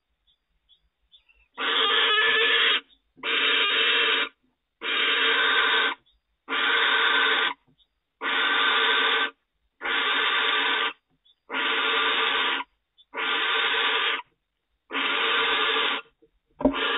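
Barn owl giving a long, rasping hiss over and over, nine times, each hiss lasting about a second with short gaps between them.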